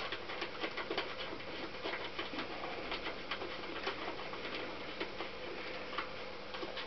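Light, irregular metallic clicking, several clicks a second, from a hand wrench working a nut on a Honda CX500 engine's cylinder, over a faint steady hum.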